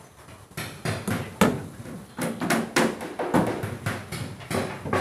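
A hammer knocking into plywood boards, about a dozen sharp, irregular knocks with a short ringing tail, typical of nailing cable clips or fittings onto practice boards.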